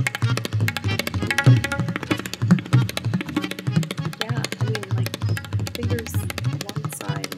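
Tabla played very fast: a dense, unbroken stream of sharp strokes over a deep, resonant bass.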